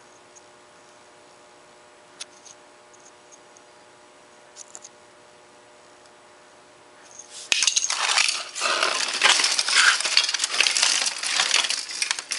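Broken laptop parts clattering and clinking as they are handled: a loud, dense run of small hard knocks starting about seven and a half seconds in. Before that there are only a few faint ticks.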